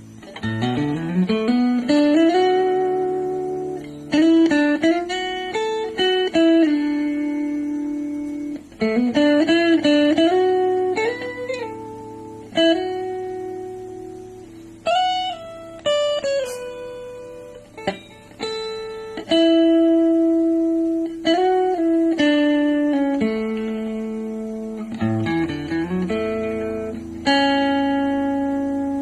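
Guitar played through a VOX Pathfinder 10 practice amplifier: phrases of picked single notes and chords, several sliding up into held notes that ring out and fade before the next phrase.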